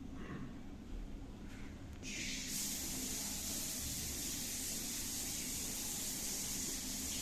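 A steady hiss, strongest in the high range, starts abruptly about two seconds in and keeps on over a faint low hum.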